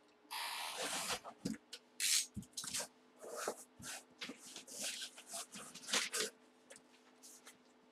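A brown paper bag and a cardboard box being handled and opened by hand: a run of short, irregular rustles, crinkles and scrapes as the box is pulled out and its flaps are folded back.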